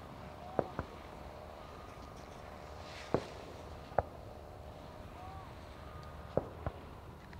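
Aerial fireworks shells bursting as six short, sharp bangs: a quick pair near the start, single bangs about three and four seconds in, and another pair near the end, over a steady low background.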